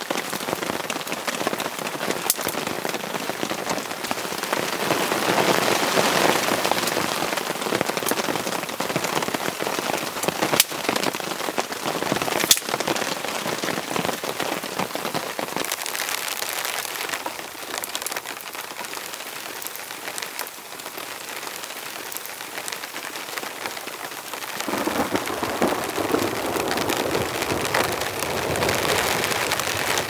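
Heavy rain falling steadily, with a few sharp clicks. A deeper rushing layer comes in suddenly near the end.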